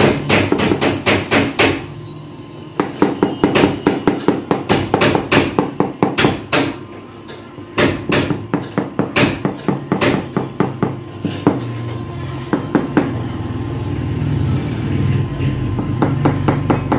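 Ceramic floor tiles being tapped down into a wet mortar bed with a hammer: runs of quick sharp knocks, several a second, with short pauses between runs, thinning out over the last few seconds.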